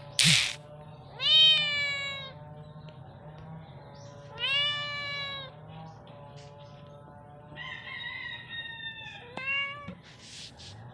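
Domestic tabby cat meowing: two long meows that fall in pitch, about a second and about four seconds in, and a short one near the end, after a brief sharp noisy burst right at the start. Between the meows, a rooster crows in the background with a long call held at one pitch.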